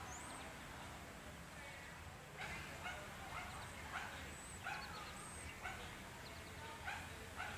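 A dog barking in a run of short, high yips, about two a second, starting a couple of seconds in.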